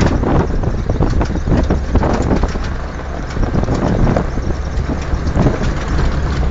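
A vehicle driving on a rough dirt road, heard from inside the cab with the side window open: a steady low rumble with constant rattles and knocks from the bumpy surface, and wind on the microphone.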